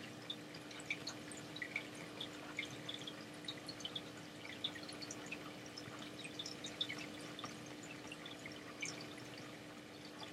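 Stylus tapping and scratching on a graphics tablet during handwriting: faint, irregular small clicks several times a second, over a steady hum.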